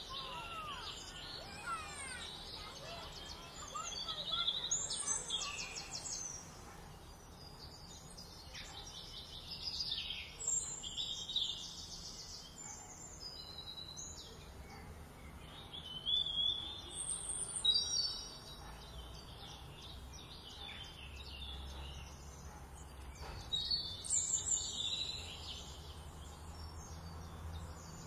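Small songbirds chirping and trilling in short bursts every few seconds over a faint steady background hiss.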